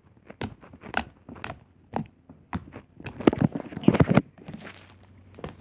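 Fluffy slime being squished and stretched by hand, making small sharp clicks about twice a second, then a denser run of crackling pops about three seconds in.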